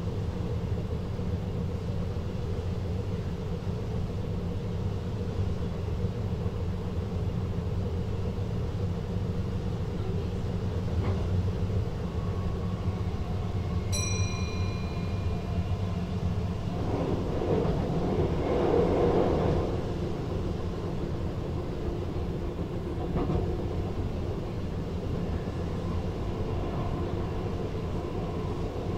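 VIRM double-deck electric train running on the track, heard from the driver's cab as a steady low rumble. A short high beep sounds about halfway, and a louder rushing swell lasts a couple of seconds soon after.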